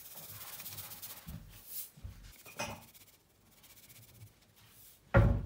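Black pepper being ground onto a salad, a fine scratchy rasp lasting about a second and a half. A few soft knocks follow, and a louder thump comes near the end.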